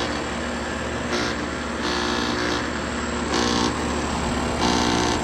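Outdoor air-conditioner unit running loudly: a steady electrical hum with a harsher rasping noise that swells and fades about every second or so. The owner suspects the compressor, possibly starting too early without its built-in delay.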